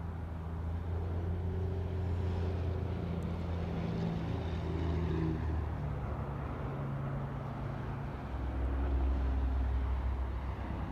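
Low diesel rumble of a Utah Railway GP38-3 locomotive approaching at a distance, its engine pitch stepping to a new level about halfway through and again near the end, with road traffic crossing the overpass above.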